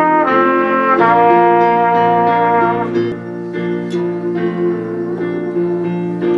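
Instrumental music: held chords that change about once a second, then quieter from about three seconds in with short plucked-sounding notes.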